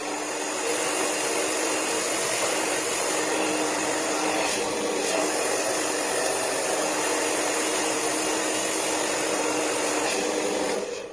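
Handheld hair dryer running steadily while it blows hair dry on a round brush, a rush of air with a steady hum under it. It starts at the beginning and switches off near the end.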